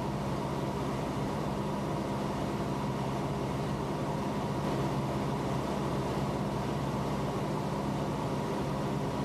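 Steady drone of a 1973 Cessna 172M's four-cylinder Lycoming O-320 engine and propeller in flight, heard from inside the cockpit as an even, unchanging hum.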